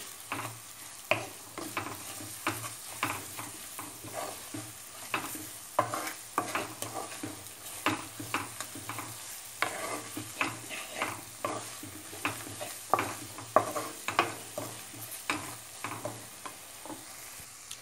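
Spatula scraping and tapping against a pan, a couple of strokes a second, as onions, tomato and spice powders are stirred and fried, with a light sizzle underneath.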